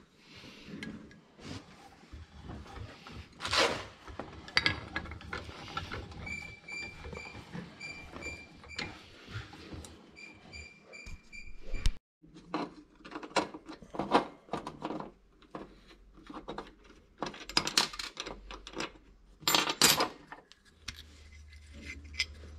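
Small metal parts and a wrench clicking, clinking and knocking as a Lombardini engine's throttle control lever assembly is worked apart by hand. Two quick runs of short high beeps come near the middle.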